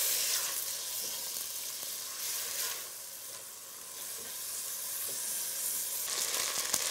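Small cubes of chicken breast sizzling as they brown in margarine in a pot, stirred with a spoon. The sizzle is a steady hiss, with a few light clicks of the spoon near the end.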